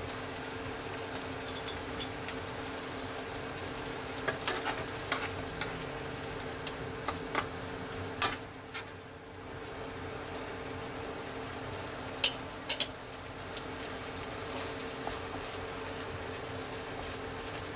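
A metal spoon knocking and scraping against a wok as tomatoes in sauce are stirred. Several sharp clinks are spread through, the loudest about eight seconds and twelve seconds in, over a steady hum.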